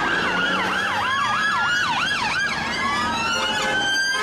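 Several British police vehicle sirens sounding together: a fast yelp sweeping up and down about three times a second over slower rising and falling wails.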